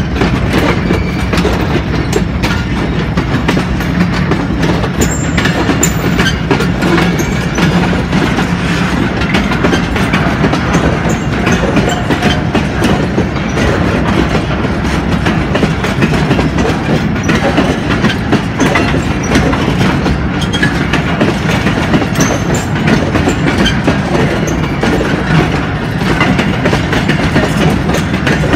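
Railway tank wagons of a long freight train rolling past close by, their wheels clattering steadily over the rail joints.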